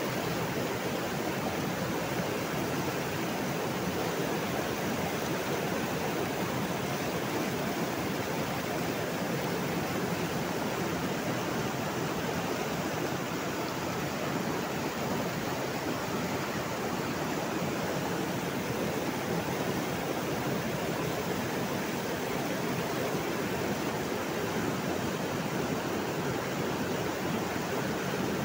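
Dirty backwash water from a rapid sand filter rushing steadily as it overflows the wash-water troughs and cascades down into the collecting channel during backwashing.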